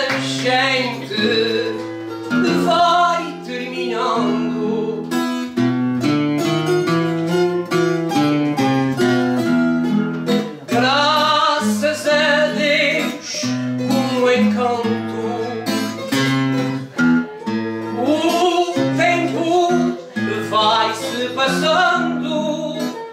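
Live music on plucked string instruments, guitar-like, playing a busy run of short notes.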